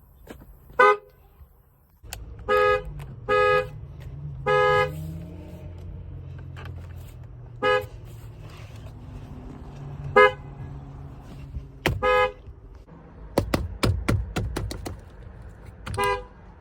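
Car horn honking in short beeps, about eight times and sometimes twice in quick succession, each honk a steady two-note blare, over a low rumble. A run of sharp clicks comes a little after the middle.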